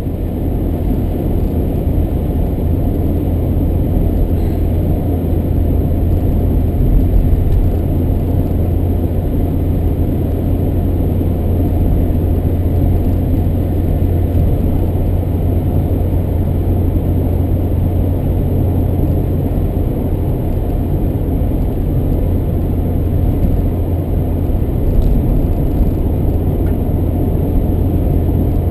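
Steady low rumble of a car driving along a sealed road, engine and tyre noise heard from inside the cabin.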